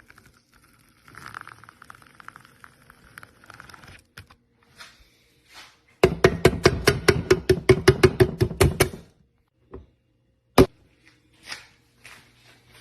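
Faint scratching, then a loud, rapid run of sharp taps, about eight a second for some three seconds, followed a second later by one more single sharp tap.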